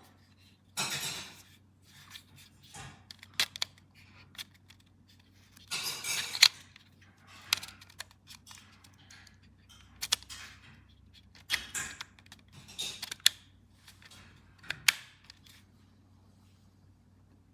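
Handling noises: a string of sharp clicks and short rustling scrapes at irregular intervals, the loudest a little past a third of the way in, over a faint steady low hum.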